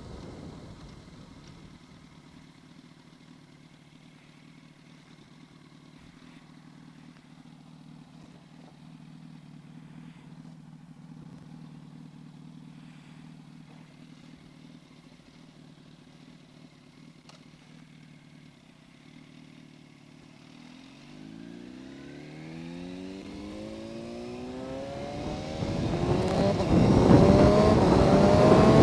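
Yamaha R1's inline-four engine running quietly at low revs, then, about twenty seconds in, accelerating hard, its note rising steadily in pitch and growing loud, with wind rushing over the microphone near the end.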